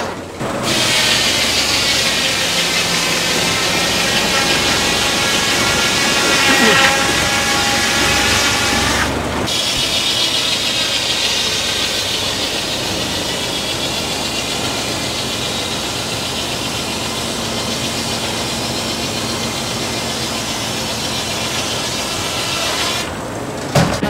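Large circular blade of an antique sawmill ripping through a log lengthwise, a loud steady whine of the saw in the wood. The sound breaks off briefly about nine seconds in, then the cut carries on until near the end.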